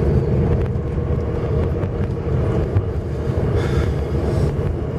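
Cabin sound of a VAZ car with a 1.6-litre 8-valve engine fitted with a 56 mm throttle body, driving steadily: even engine and road rumble. A brief rushing hiss rises and fades about three and a half seconds in.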